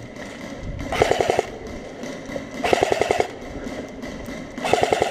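Airsoft electric rifle firing three short full-auto bursts, each a rapid rattle of about half a second.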